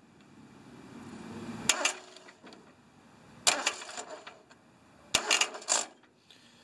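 A wrench clinking against a metal terminal nut on a tractor's starter motor as the nut is turned: a few sharp metallic clicks, about two seconds apart, with a quick run of them near the end.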